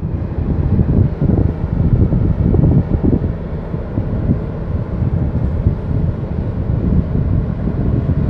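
Wind buffeting the microphone: a gusty, rough low rumble with no clear tone in it.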